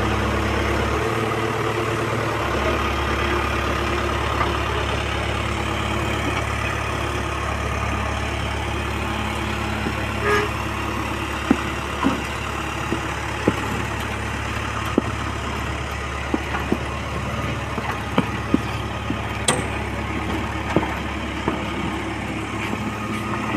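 Backhoe loader's diesel engine running steadily at low revs while towing a wheeled concrete mixer hooked to its arm. From about ten seconds in, scattered sharp knocks and clicks.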